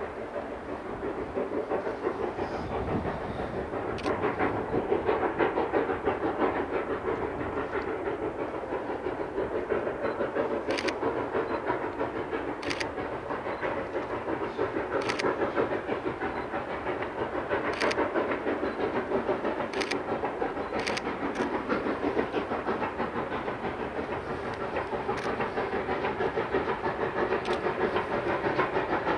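Narrow-gauge steam locomotive working along the line, its exhaust a steady rapid chuffing that grows louder after about four seconds, with a scattering of sharp clicks.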